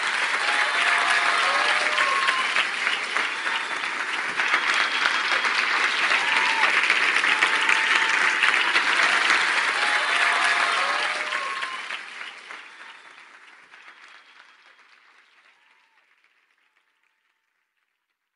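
A crowd applauding and cheering, with scattered voices calling out. It fades away gradually from about eleven seconds in.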